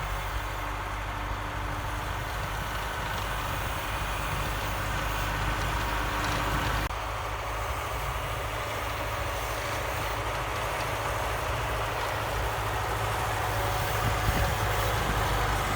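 Diesel engine of an EO-2621 tractor-mounted excavator (YuMZ tractor base) running steadily, with an abrupt change in its sound about seven seconds in.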